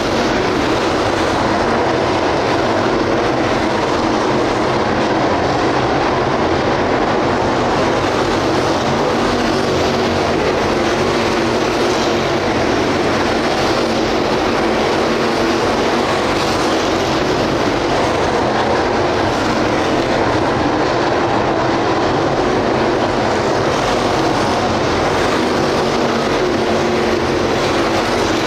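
A field of dirt late model race cars running laps, their 602 crate V8 engines making a loud, steady din without a break.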